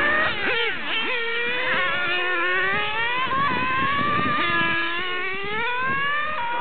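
Several nitro-powered RC car engines revving at once, their overlapping high-pitched tones rising and falling as the cars accelerate and slow around the track.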